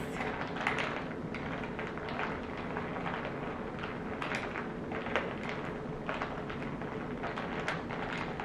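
Ice cubes and a straw clinking against a glass as an iced latte is stirred: light, irregular taps and clicks.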